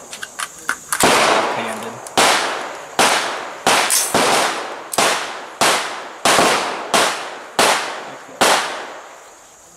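A string of about eleven gunshots, irregularly spaced and mostly less than a second apart, each followed by a short echoing tail.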